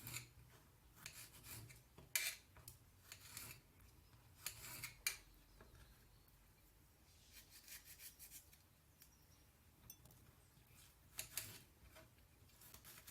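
Knife cutting a lemon into small pieces: faint, irregular cutting strokes, clustered in the first few seconds and again near the end, with a quiet stretch of several seconds between.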